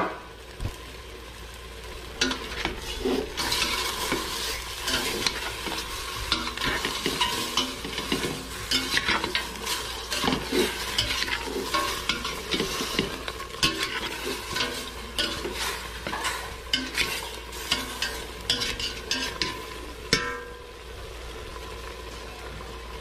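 Chicken pieces sizzling in a pot as they fry in their own rendering fat, stirred with a utensil that scrapes and knocks against the pot. The stirring goes from about two seconds in until a few seconds before the end.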